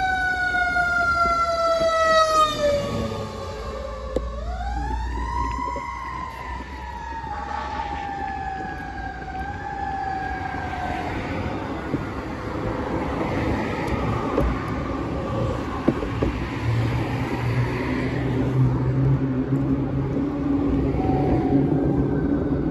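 An emergency vehicle's siren wailing, its pitch rising and slowly falling twice before fading out about halfway through. Road traffic then passes, with a low engine hum near the end.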